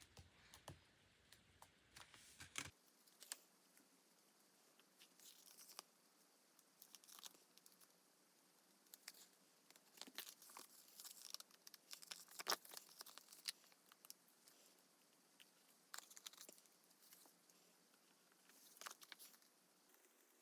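Paper-crafting materials being handled for journal decorating: soft scattered rustling, crinkling and tearing of paper, most busy in the middle and again near the end.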